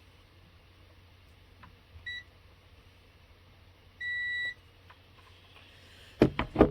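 Continuity tester beeping as its probes bridge the headlight switch contacts: a short beep about two seconds in, then a longer half-second beep, the signal that the circuit is continuous. Near the end comes a quick run of sharp knocks, louder than the beeps.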